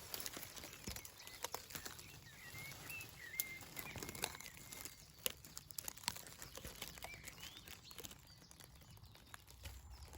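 Leaves and twigs rustling, with irregular sharp cracks and clicks, as a hedge is parted by hand. A small bird sings faintly in the background, mostly between about two and a half and four seconds in.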